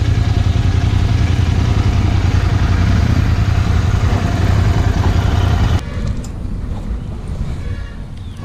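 Royal Enfield Interceptor 650's parallel-twin engine running low and steady at a standstill, then switched off, cutting out abruptly about six seconds in.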